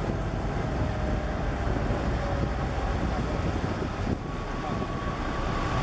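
Boat engine running steadily, with wind buffeting the microphone. A faint, high, steady tone joins about four seconds in.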